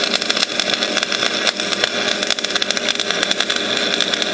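Stick welder's arc crackling steadily as a bead is run along a cracked riding-mower front axle frame to reinforce it.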